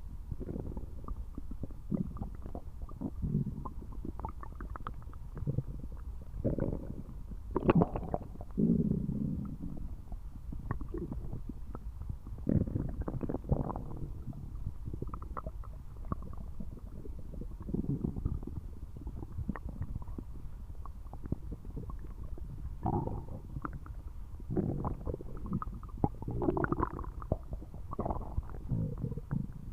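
A person's stomach gurgling loudly and strongly: irregular rumbles and bubbling squeals over a steady low rumble, loudest near eight and thirteen seconds in.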